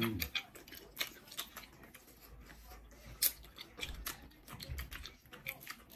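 Close-miked chewing of octopus and rice cakes: irregular wet clicks and smacks of the mouth, a few every second, with no steady background.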